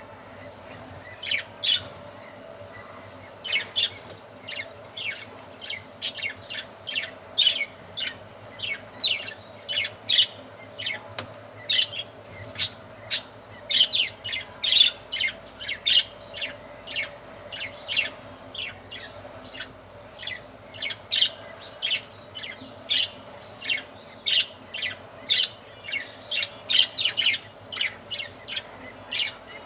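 Budgerigars chirping: a steady run of short, high chirps, about two a second.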